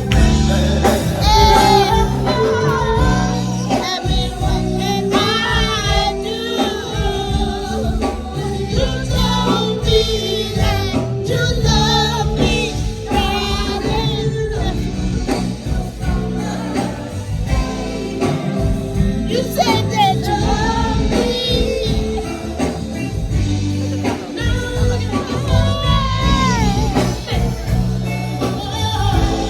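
A song with a singing voice over a band, playing loud and steady, with a gospel feel.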